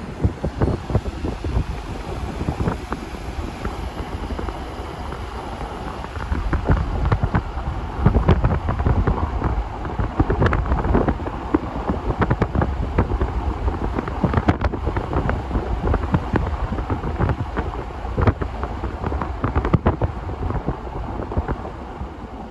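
Wind buffeting the microphone in uneven gusts, a loud low rumble.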